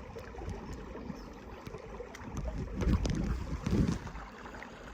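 Water sloshing and splashing around someone wading a shallow stream, louder for a couple of seconds about halfway through, with wind rumbling on the microphone.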